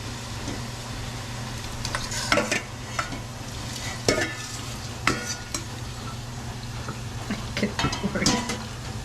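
Pork in soy-calamansi marinade frying in a pan with potatoes and vegetables, a steady sizzle, as a utensil stirs and scrapes against the pan with several short strokes.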